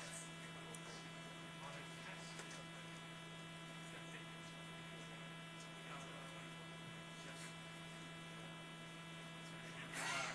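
Faint, steady electrical hum with a stack of higher overtones. A voice briefly cuts in near the end.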